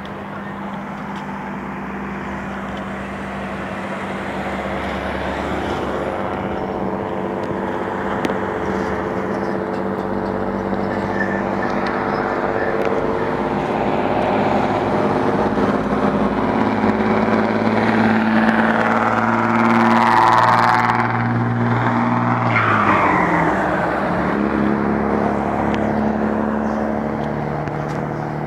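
Highway traffic with a heavy truck approaching. Its engine and tyre noise grow steadily louder, peak about two-thirds of the way through, then drop in pitch as it passes underneath.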